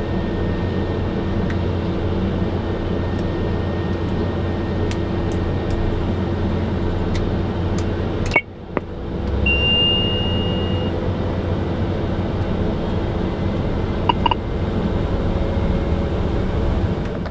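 Steady mechanical hum of an engine or machine, with a few faint clicks. It breaks off abruptly about eight seconds in and comes back, a short high beep sounds soon after, and it cuts off suddenly at the end.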